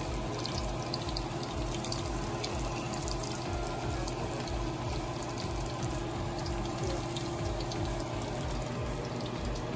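Breaded chicken tenders shallow-frying in hot oil in a pan: a steady sizzle with fine, continuous crackling.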